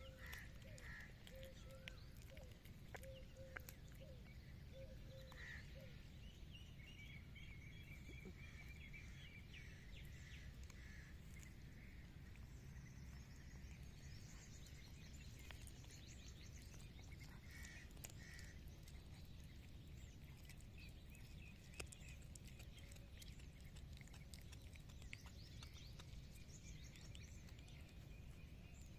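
Near silence: faint steady outdoor background rumble with a few faint high chirps and scattered soft ticks.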